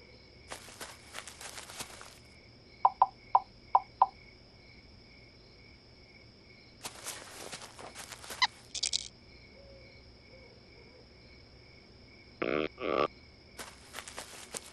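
Steady night-time cricket chirring with cartoon sound effects over it. There are short bursts of noise, a run of five quick loud beeps about three seconds in, and two short blips near the end.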